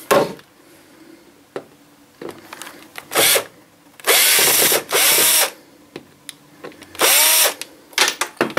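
Bosch PSR 14.4 cordless drill-driver run in four short bursts while backing screws out of a wall, the motor whine rising and falling with each trigger pull. A few small clicks come between the bursts.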